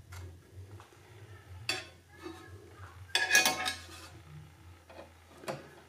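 Metal clicks and clinks from a small bandsaw's blade guide assembly being loosened and shifted by hand with a hex key. A loud clinking cluster comes about three seconds in, with single clicks before and after it.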